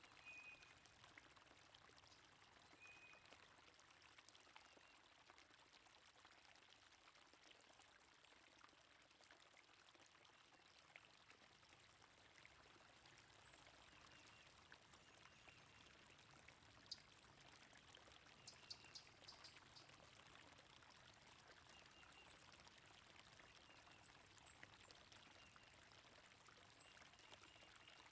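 Faint, steady flow of a stream, with scattered short, high bird chirps over it and a brief cluster of ticks a little past halfway.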